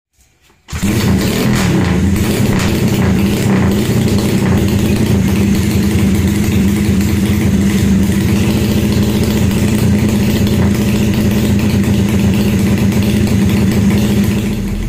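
Drag-racing motorcycle engine running on a rear stand, starting abruptly about a second in, then holding a loud, steady note.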